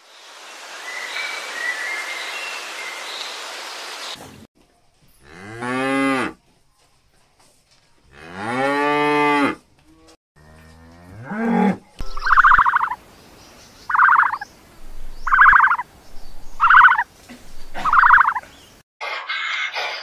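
Cattle mooing: two long, low moos, a shorter one after them, and then a run of five short, higher calls from another animal, evenly spaced.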